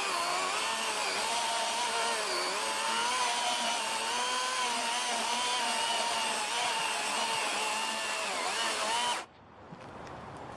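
Greenworks Pro 60-volt 18-inch brushless battery chainsaw running and cutting through a wood stump, its motor pitch wavering slightly under load, then stopping abruptly about nine seconds in.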